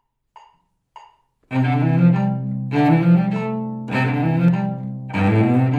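Solo cello playing an étude: two short faint ticks, then about a second and a half in the cello comes in with strongly bowed notes, in phrases that restart with a fresh attack roughly every 1.2 seconds.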